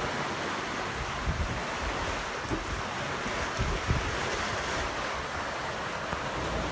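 Steady rush of wind and sea water around a sailing catamaran, with brief gusts buffeting the microphone several times.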